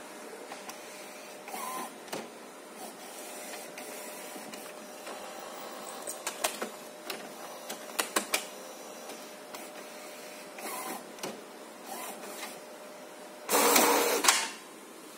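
HP Designjet 130 wide-format inkjet printer running, its print-head carriage whirring back and forth over the paper, with a run of sharp clicks about halfway through and a louder whir lasting about a second near the end. It is printing the head-alignment pattern, a routine that the owner says fails on this printer.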